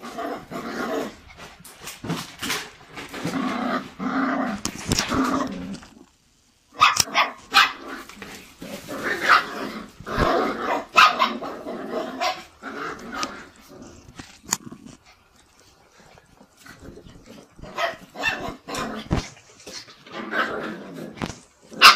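Seven-week-old miniature poodle puppies growling and yapping as they play-fight, in short repeated calls with scattered clicks and knocks. There is a brief break about six seconds in and a quieter stretch a little past the middle.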